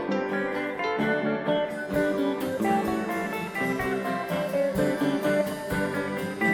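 Background music: guitar-led track with plucked and strummed guitar over a steady beat.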